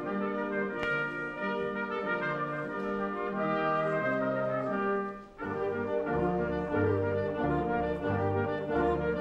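Brass ensemble playing slow, stately music in held chords, with a short break about five seconds in before the next phrase begins with deeper bass notes.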